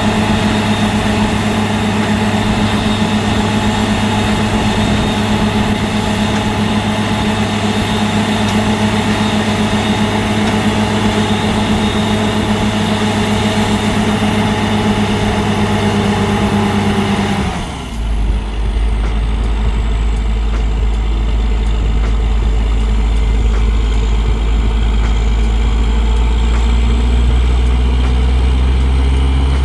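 Borehole drilling rig's engine running steadily. About two-thirds of the way through, its note drops abruptly with a brief dip in level, then settles to a deeper hum that slowly rises.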